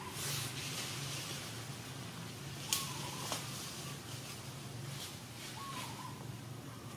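A bird calling in the background: a short whistled note that rises and then dips, repeated about every three seconds over a steady low hum. Two sharp clicks come near the middle.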